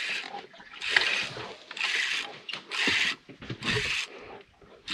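Spinning reel cranked under load in repeated rasping bursts, about one a second, as a fish, taken for a red grouper, is reeled up from deep water.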